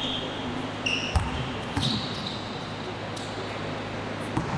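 Basketball bouncing on a court during play: a few separate thuds, with short high squeaks in between.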